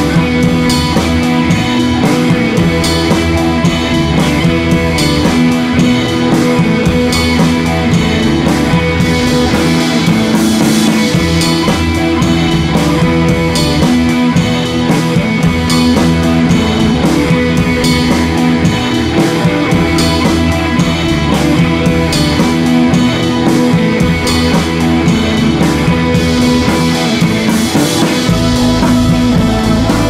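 Background rock music with electric guitar and a drum-kit beat.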